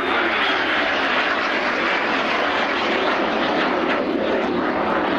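BAC Strikemaster light jet flying past under its Rolls-Royce Viper turbojet: a loud, steady rushing engine noise, with a faint high whine falling slightly in pitch near the start.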